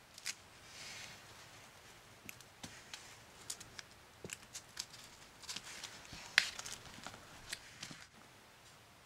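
Hands handling a plastic bread-cutter mould and a sandwich on a table: a soft rustle near the start, then scattered light clicks and taps, the sharpest about six seconds in.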